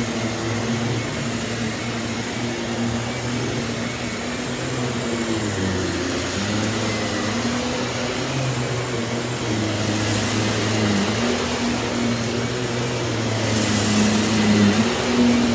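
Miele S194 QuickStep stick vacuum running while vacuuming the floor: a steady motor hum that shifts slightly in pitch as the nozzle is pushed around, with the hiss swelling briefly about ten seconds in and again near the end.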